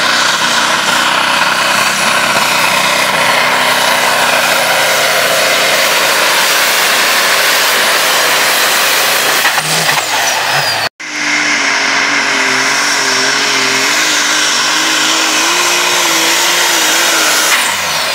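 Pulling tractor engines running flat out under load as they drag the weight sled, the engine note wavering slightly up and down. About 11 s in, the sound cuts off abruptly and a second pulling tractor, a red Massey Ferguson, picks up at full power.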